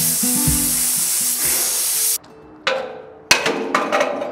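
Stick-welding arc on steel crackling and hissing steadily, cutting off suddenly about two seconds in; then two sharp metallic clanks with a short ring, as steel vent plates are set down on the fire pit's top.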